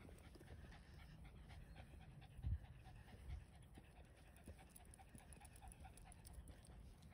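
A dog panting faintly, in quick even breaths of about four or five a second. Two dull low bumps sound about two and a half and three and a half seconds in.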